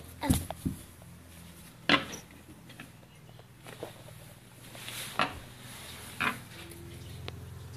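Scattered sharp knocks and clicks, five or so, the loudest about two seconds in, over a low steady hum.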